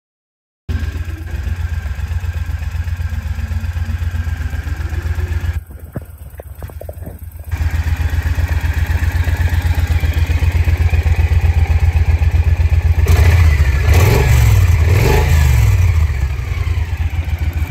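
2011 Triumph Thunderbird 1600's parallel-twin engine idling with an even, pulsing exhaust beat, heard from close to the engine and pipes. About two-thirds of the way through it is revved twice, rising and falling each time.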